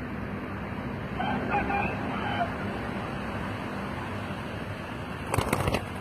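Spotted dove's wings flapping in a quick run of sharp beats near the end, over a steady hum of traffic. A short bird call comes about a second in.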